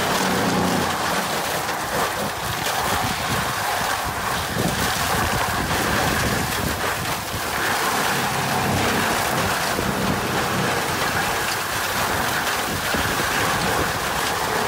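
Tractor-driven Seppi Miniforst pick-up shredder running steadily while its rotor chews through heaped branches and pruning debris, a loud continuous noise over the tractor's engine.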